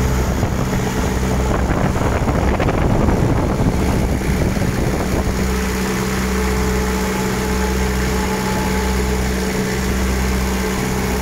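Small diesel engine of a truck refrigeration unit running at a steady speed, with a slow, regular throb in its low note. For about three seconds near the start a broader rushing noise covers the engine's note.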